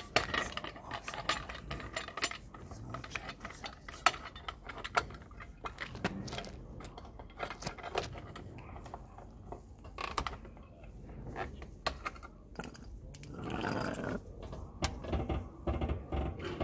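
Irregular sharp metallic clicks and clatter of metal tools being handled, busier near the end.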